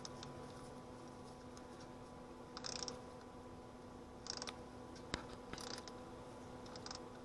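Faint handling noises of an adjustable metal oil filter wrench: three short scraping rasps and one sharp click, over a faint steady hum.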